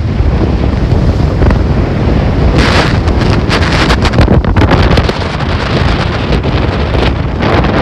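Strong wind buffeting the microphone with a heavy low rumble, gusting harder from about two and a half seconds in, over the noise of a rough sea with high waves.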